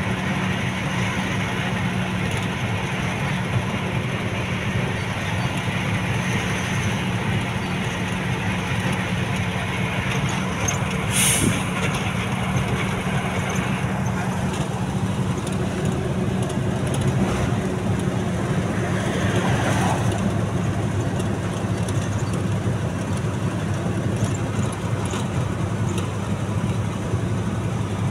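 A vehicle's engine running steadily under way, with road and wind noise heard from on board. There is a brief hiss about eleven seconds in.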